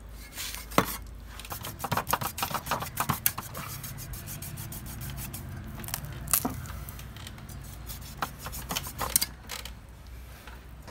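A large knife scraping and chopping through a big fish's flesh, fin and bone on a steel tray: a run of sharp clicks and scrapes about two to three and a half seconds in, with single knocks about one, six, eight and nine seconds in.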